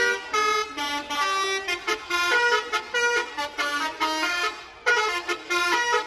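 Bus telolet horn playing a quick, bouncy tune, with several horn notes sounding together and changing pitch every fraction of a second. The tune dips briefly about four and a half seconds in, then starts again.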